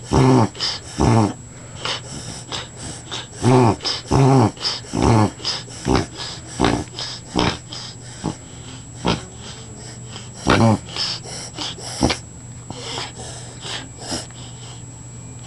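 Dog reverse sneezing: short, loud, forceful pulls of air through the nose, repeated in quick runs. There are three louder bouts, near the start, about four seconds in and about ten seconds in, with fainter ones between.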